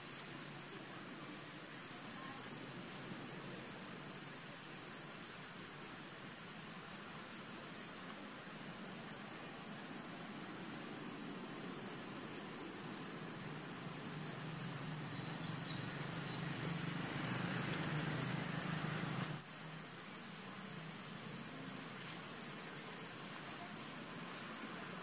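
Steady, high-pitched drone of insects in the forest, one unbroken tone with fainter higher tones above it. About 19 seconds in it drops suddenly in loudness and sits a shade lower in pitch.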